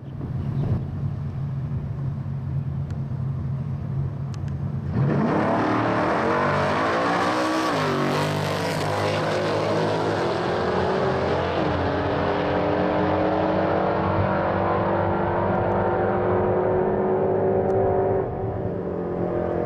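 Drag cars, a Holden Commodore ute among them, idling on the start line, then launching hard about five seconds in. The engine note climbs, drops twice at gear changes, and dulls as the cars run away down the strip.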